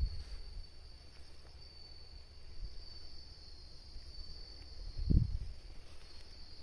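Steady high-pitched insect trilling, with low rumbling from the phone being handled and a single thump about five seconds in.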